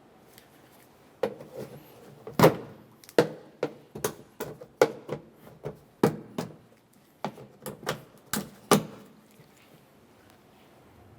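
Plastic push clips being pried out of a Ford Explorer Sport Trac's inner tailgate trim panel with a trim tool: a quick irregular run of sharp clicks, snaps and plastic knocks for several seconds, the loudest about two and a half seconds in, stopping near the end.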